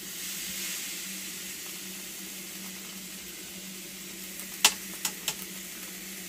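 T-bone steak sizzling steadily in a hot ribbed cast iron grill pan, just turned seared side up, with a faint steady hum underneath. About four and a half seconds in come three sharp clicks, the first the loudest.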